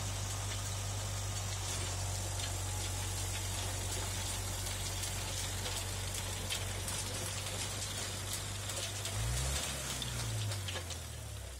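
John Deere 5615F tractor engine running steadily under load, driving a Joper rotary tiller through greenhouse soil, over a steady hiss and scattered ticks from the soil being churned. Near the end the engine note rises and then falls back.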